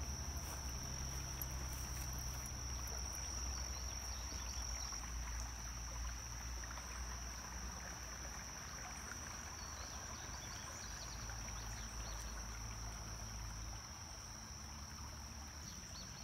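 Steady high-pitched insect drone, unbroken throughout, over a low rumble.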